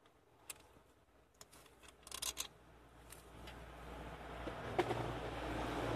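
Light clicks and a quick cluster of rattling clicks about two seconds in from hand work on the throttle body's bolts. These are followed by a soft rustle that builds toward the end.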